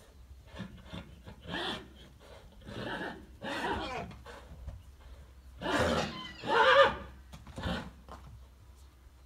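Purebred Spanish horses neighing and whinnying: about six separate calls of varying length, the loudest two coming close together about six to seven seconds in.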